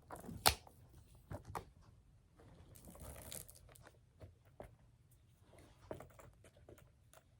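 Quiet handling noises: scattered light clicks and a brief rustle as bags and their straps are handled and put on, with one sharper click about half a second in.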